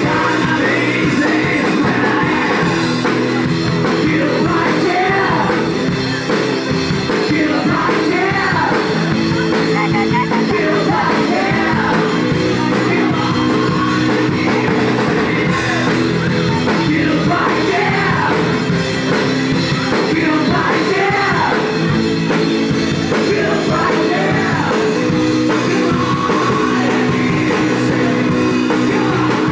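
A rock band playing live: drums and amplified band under a lead singer's voice, loud and unbroken.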